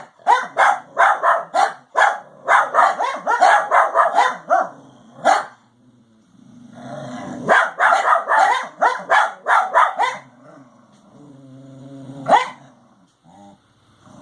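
Several dogs barking at ponies close by, in fast, overlapping volleys. The barking pauses briefly about halfway through, starts again, then dies down to one last loud bark near the end.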